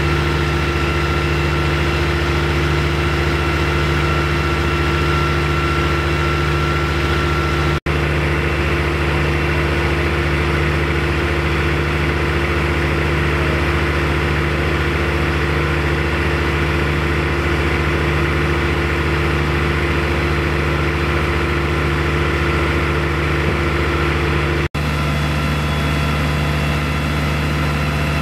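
Fire engines' diesel engines running steadily at idle, a constant deep hum with a thin high steady tone over it in the first few seconds. The sound drops out for an instant twice.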